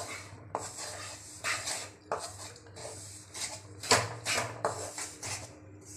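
Wooden spatula scraping and stirring flour roasting in ghee in a metal kadhai, a run of irregular scrapes about one or two a second, the loudest about four seconds in. A low steady hum runs underneath.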